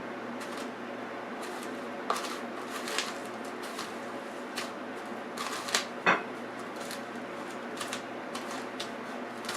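A raw chicken piece being dipped in egg wash and pressed and turned in a bowl of dry breadcrumbs: scattered crumbly rustles and light taps, with a sharper knock about two seconds in and a louder one about six seconds in, over a steady low hum.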